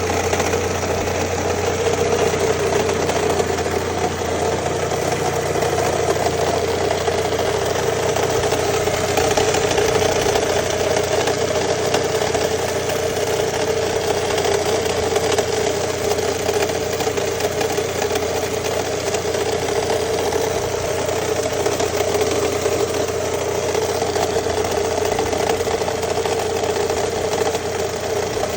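An engine idling steadily with a knocking noise in it, the knock being the fault that is being recorded.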